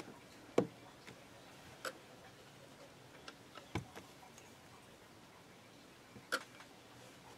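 A few light, separate clicks and taps, about four in seven seconds, as a long clay slicing blade is handled and laid on a polymer clay sheet on a hard work tile, with quiet room tone between.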